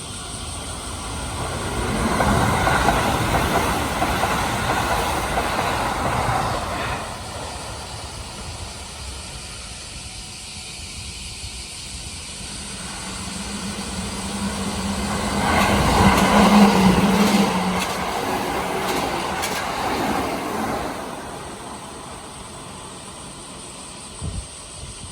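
Kintetsu electric trains passing on the track, twice. The first swells up about two seconds in and rattles past for some five seconds. The second builds from about twelve seconds, is loudest around sixteen seconds with a steady low hum beneath it, and fades by about twenty-one seconds. A short knock comes near the end.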